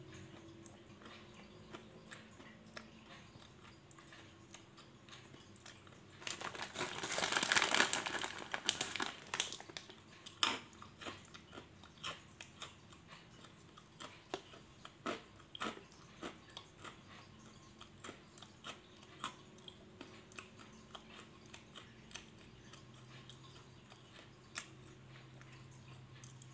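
A person eating a crunchy snack close by: a burst of rustling and crunching about six seconds in, then scattered single crunches of chewing.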